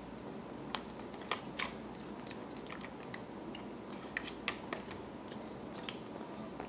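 Close-up eating sounds: chewing with scattered sharp mouth clicks, and a plastic fork now and then clicking against a plastic food container.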